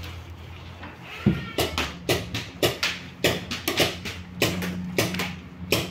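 Paintball markers firing: a quick run of sharp pops, about three to four a second, starting a little over a second in.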